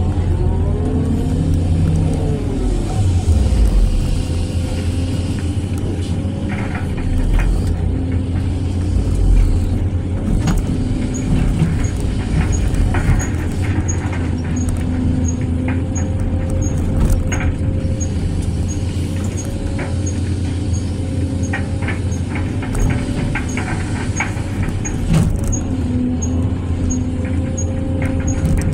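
Hydraulic excavator's diesel engine running steadily under working load, heard from inside the cab. A whine rises and falls in pitch in the first few seconds as the arm swings, and short knocks and scrapes come every few seconds as the bucket digs into soil.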